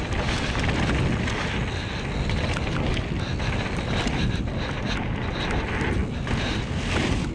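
Wind buffeting the action camera's microphone and mountain bike tyres rumbling over a packed dirt trail at speed, with frequent small knocks and rattles from the bike.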